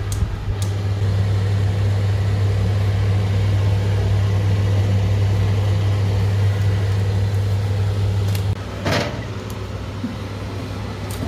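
A steady low mechanical hum, easing slightly about eight and a half seconds in, with a short clatter near nine seconds as the baking tray goes into the oven.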